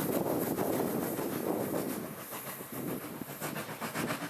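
1907-built SJ E2 steam locomotive running along the station track, its rushing sound dropping off about two seconds in, with wind buffeting the camera's built-in microphone.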